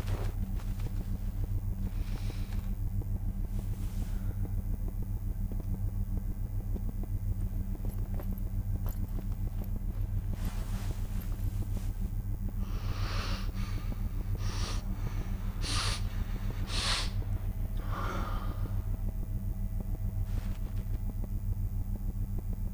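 A steady low rumbling drone, with short rustling noises about ten seconds in and several more between about 13 and 18 seconds.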